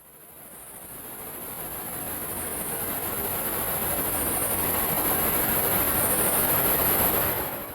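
Cinematic wind swell: rushing, rumbling wind noise that builds steadily from nothing for about seven seconds, then fades out quickly near the end.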